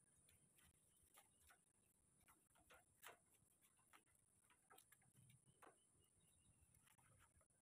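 Near silence with faint, irregular ticks and scrapes of a steel trowel pressing wet cement mortar into a rebar column cage; the sharpest tick comes about three seconds in.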